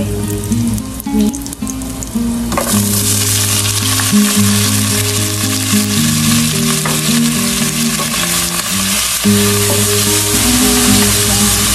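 Chopped blanched meat hitting hot oil with garlic in a nonstick pot: a loud sizzle starts suddenly about two and a half seconds in and carries on as the meat fries and is stirred with a spatula. Background music plays underneath throughout.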